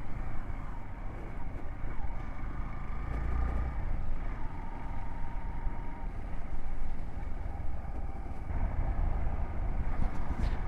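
Hero XPulse 200 single-cylinder motorcycle engine running under way, with steady low road and wind rumble.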